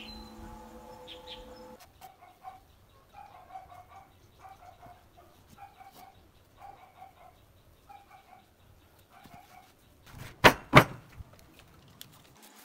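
A hen clucking in short runs of calls, roughly one run a second, after a held musical chord stops about two seconds in. Near the end come two loud, sharp knocks less than half a second apart.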